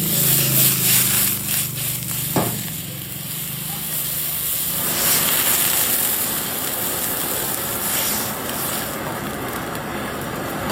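Food frying in hot oil in a pan, a steady sizzle with crackles, a knock about two and a half seconds in, and a fuller sizzle from about halfway.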